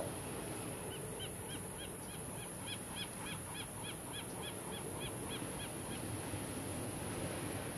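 A bird calling a rapid run of short, high, evenly spaced notes, about four a second, starting about a second in and stopping about six seconds in, over steady background noise.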